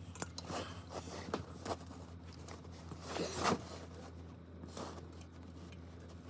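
Scattered light knocks, clicks and rustling from someone moving about and handling tools and parts, with a louder scrape about three and a half seconds in.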